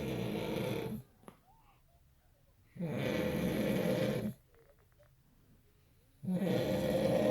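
A sleeping man snoring in a steady rhythm, one long snore about every three and a half seconds: the first ends about a second in, the second falls around three to four seconds in, and the third starts near the end.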